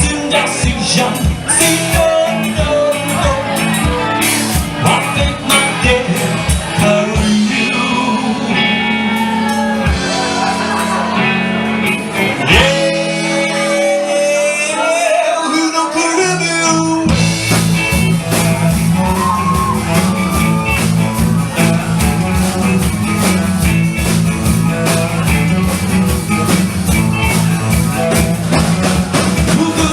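Live band playing a rock-blues song with a steady drum beat. About 13 seconds in, the drums and bass drop out, leaving a gliding melodic line alone. The full band comes back in about 17 seconds in.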